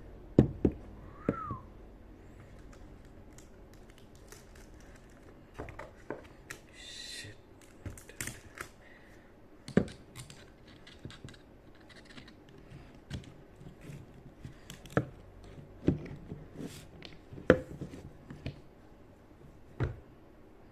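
Small hard parts of a motorcycle brake master cylinder being handled during unboxing: irregular clicks and knocks, with a brief squeak about a second in and a short rustle around seven seconds in.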